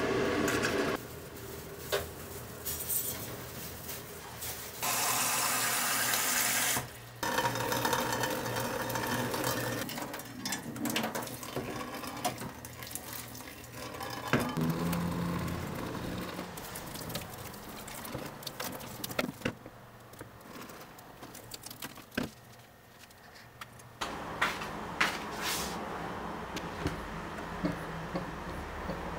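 Tap water running on and off into a stainless steel kitchen sink and drain, with knocks of the metal drain strainer being handled. Near the end, small clicks and scrapes of a utility knife cutting a plastic tube nozzle.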